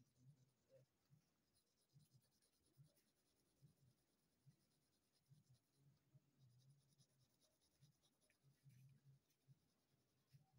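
Faint scratching of a mechanical pencil on drawing paper in short, irregular shading strokes.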